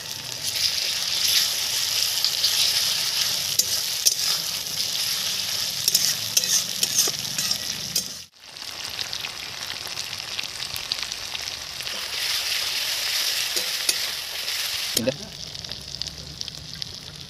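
Onions, tomato and greens sizzling in hot oil in an aluminium wok, with a metal spatula scraping and clicking against the pan as they are stirred. The sound cuts out briefly about eight seconds in and is quieter over the last couple of seconds.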